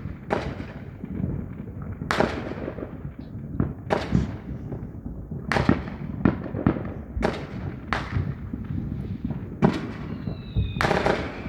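Fireworks going off: about a dozen sharp bangs, roughly one a second, over a continuous low rumble.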